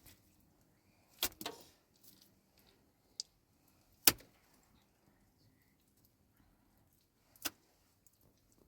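A few sharp knocks and clicks scattered over a quiet background, the loudest about four seconds in.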